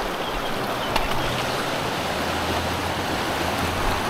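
Water of the Narcea river flowing, a steady rushing noise, with a small knock about a second in.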